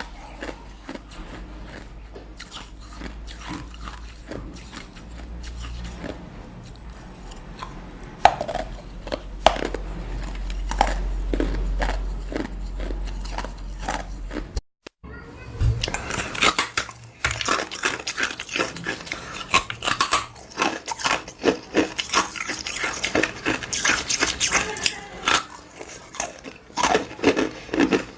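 Ice being bitten and chewed, a run of sharp crunches and cracks. After a brief break about halfway, the crunching comes denser and louder.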